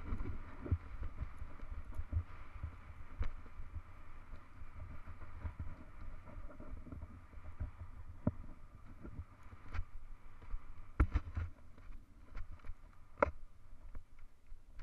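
Hardtail mountain bike rolling fast down a dirt road: a steady low rumble from the tyres and wind on the microphone, with scattered clicks and rattles from bumps in the road and two sharper knocks near the end.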